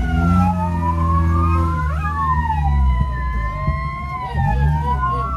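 Several electronic siren tones sweeping up and down at once, crossing over each other, above the low drone of a truck's engine. The engine note drops and climbs again around the middle.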